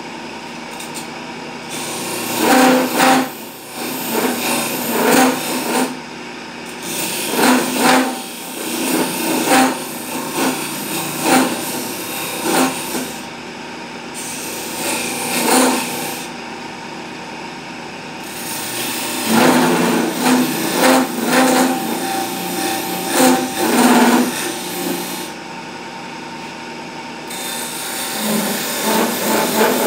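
Electric wood lathe running with a steady hum while a hand-held turning gouge cuts into the spinning wooden spindle in repeated short passes, each a scraping rush of cutting noise lasting a second or two.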